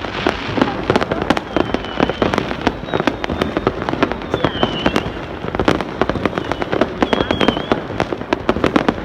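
Fireworks going off: a dense run of sharp cracks and pops, with a few short high whistles that dip in pitch scattered through it.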